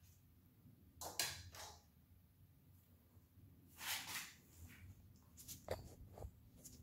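Faint handling noises of a screwdriver and gloved hands working at a plastic injector wiring connector: a few short spells of scraping and small clicks, with a quick run of clicks near the end.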